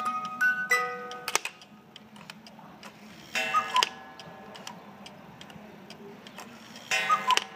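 Cuckoo clock: its music box tune ends about a second in, then the clock ticks steadily, with two short bursts of tones from the clock, one a little over three seconds in and one near the end.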